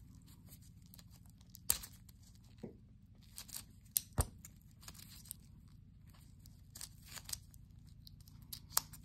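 Plastic bubble packaging of a button-cell battery crackling and tearing as gloved fingers pick and pull it open, with irregular sharp cracks, the loudest about two and four seconds in.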